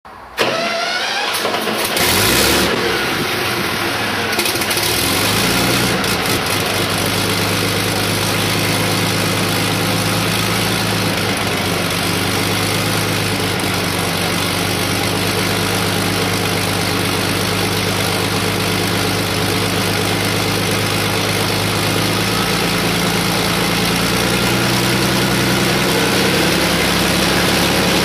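Rolls-Royce Merlin V12 aero engine running on a test stand, uneven for the first couple of seconds, then running steadily, edging up slightly in pitch over the last few seconds. Its exhaust goes through a long collector manifold of the kind used on Merlin-powered Beaufighter IIFs, which cuts out much of the Merlin's usual high-pitched sound and makes it much quieter.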